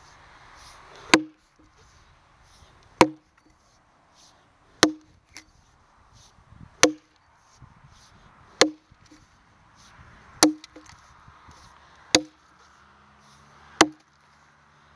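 Jersey-pattern axe chopping a notch into a log while bucking it: eight sharp strikes, evenly spaced about every two seconds, each a crisp bite into the wood.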